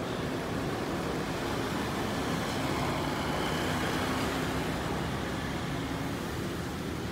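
Street traffic noise with a motor vehicle's engine passing close by, slightly louder about halfway through.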